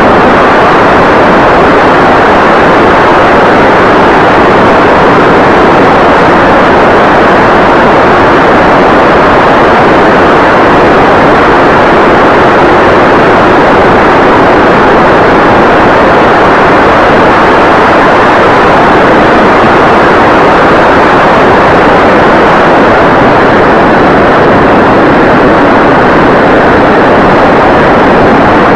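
Steady, loud, even rush of wind and propeller noise picked up by an 808 keychain camera mounted on a foamboard RC plane in flight, with no clear motor tone standing out.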